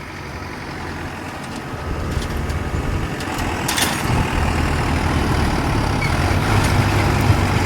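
Kubota DC-70 combine harvester's diesel engine running steadily, growing gradually louder, with a brief sharp clack about four seconds in.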